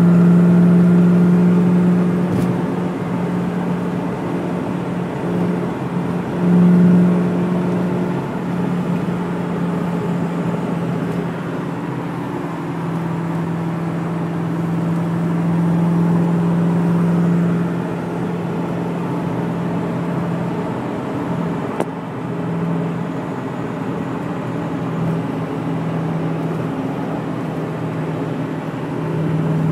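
Car engine droning steadily at highway cruising speed, with tyre and road noise, heard from inside the cabin; the drone fades and returns now and then.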